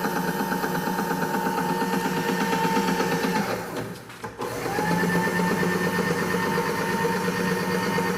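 Bridgeport Series I vertical milling machine's 2 HP spindle drive running with a steady whine. About midway it briefly winds down in pitch and level, then spins back up within a second to the same steady speed.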